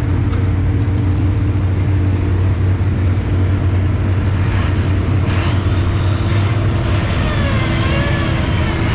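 An engine running steadily at an even pitch, with no rise or fall in speed.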